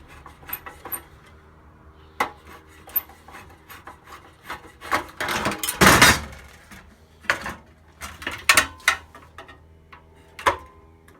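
Flat-blade screwdriver working on the sheet-metal body of a fluorescent light fitting: scattered metal clicks and knocks, with a louder scrape about halfway through as it levers against the metal.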